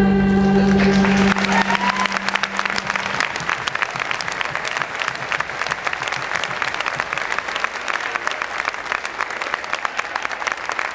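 A choir's final held chord cuts off about a second in, and the audience breaks into steady applause of many hands clapping.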